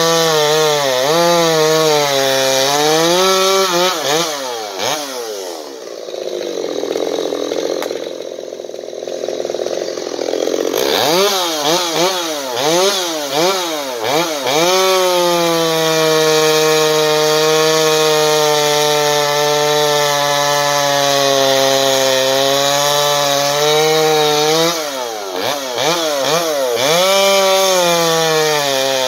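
Stihl MS 250 two-stroke chainsaw, freshly rebuilt, with the muffler baffle removed, running at high revs. Its revs rise and fall a few times, drop to idle about five seconds in, climb again around eleven seconds, hold high and steady for several seconds, and dip and rise once more near the end.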